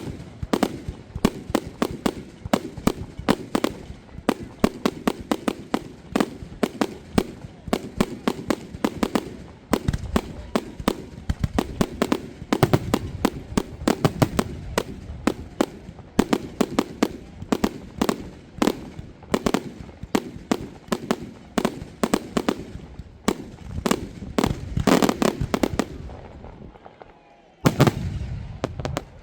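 Aerial fireworks display: a dense, rapid run of sharp bangs and crackles, thinning out near the end with one last loud burst before dying away.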